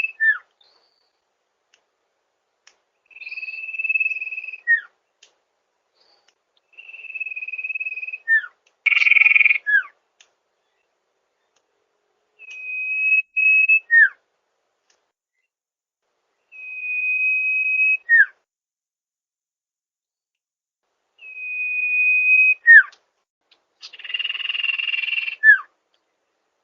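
Sirtu bird singing: a steady high whistle held for a second or so, then a quick downward slur, the phrase repeated every four to five seconds. Twice a harsh, rasping burst comes with the whistle.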